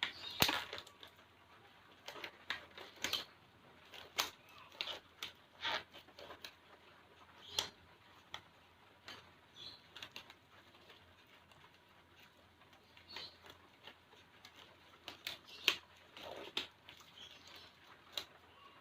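Disposable examination gloves being pulled on and handled: scattered light rustles and sharp snaps at irregular moments.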